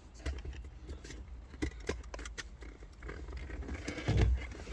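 Scattered clicks of a handheld engine programmer's buttons being pressed while tire size and tune settings are entered, with a brief low rumble about four seconds in.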